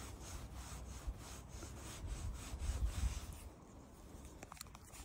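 Rhythmic rubbing of strokes across a cat's fur, about four strokes a second, fading out about two seconds in; a low rumble swells just after.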